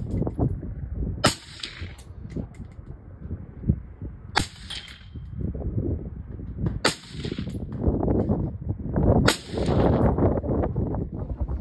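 Rifle fired four times, single shots spaced about two and a half seconds apart, each a sharp crack.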